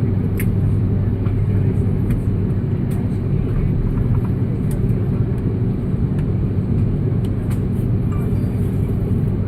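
Steady low rumble inside the cabin of an Airbus A330-300 on the ground after landing, from its jet engines and cabin air. A few faint clicks and knocks from the cabin sound over it.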